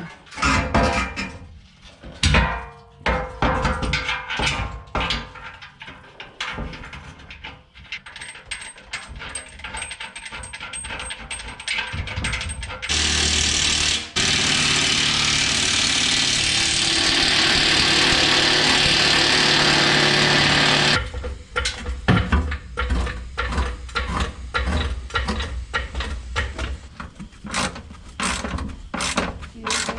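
Rapid metallic clicks and clinks of hand-tool work on the Jeep, broken by about eight seconds of a loud, steady machine noise in the middle that starts and stops abruptly.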